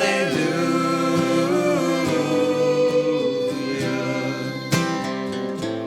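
Worship song with singing held over a strummed acoustic guitar and band, the last 'hallelujah' of the chorus drawn out before the guitar carries on into the next verse.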